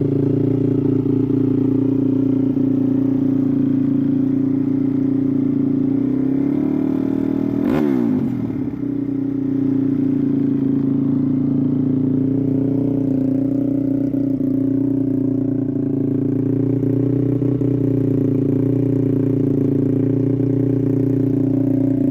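Honda TRX450R's single-cylinder four-stroke engine, fitted with dual exhausts, running steadily through its exhaust, with a brief change in pitch about eight seconds in.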